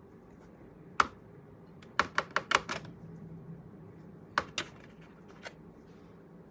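Sharp plastic clicks and taps as fingers handle a CD-style disc: a single click about a second in, a quick run of five or six a second later, then a few more spaced clicks.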